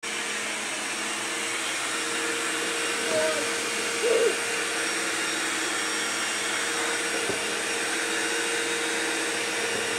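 Vacuum cleaner running steadily, a constant whirring hiss with a hum. There are brief voice sounds about three and four seconds in.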